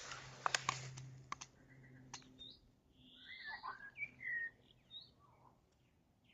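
Faint bird calls: several chirps and whistled, sweeping notes about three to four and a half seconds in. Before them, in the first second and a half, there is a short noisy rush with a few sharp clicks.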